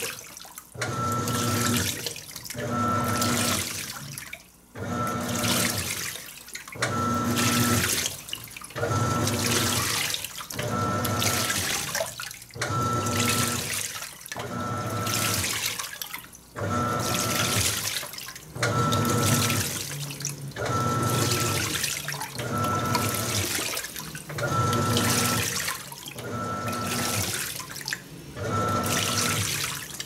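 Panasonic NA-F180P7T 18 kg top-load washing machine agitating during its first rinse. The motor hums in strokes about every two seconds, reversing with short pauses between, while water sloshes in the tub.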